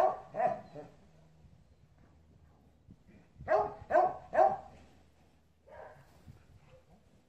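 A dog barking in short quick runs, about two barks a second: two at the start, three louder ones about three and a half seconds in, then a few fainter barks near six seconds.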